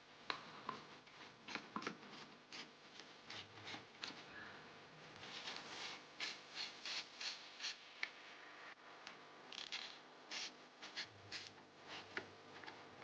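Ratchet wrench tightening the 13 mm top-mount bolts: short, faint bursts of ratchet clicking with each back-swing, coming in quick runs of about two to three a second.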